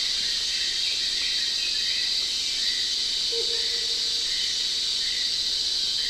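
Dense rainforest insect chorus, a steady high-pitched drone, with short bird-like chirps scattered through it and one brief lower note a little over three seconds in.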